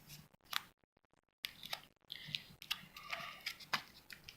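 Fingers picking and peeling at the tape on a homemade paper card pack: faint scattered clicks, scratches and crinkles, with the sound cutting out completely for about half a second near the start.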